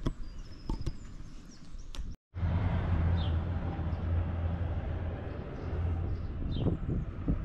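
Riding noise from an e-bike on a paved street: a steady low hum with rushing wind and tyre noise, and a few short bird chirps over it. It starts abruptly about two seconds in, after a moment of quieter outdoor sound with birds.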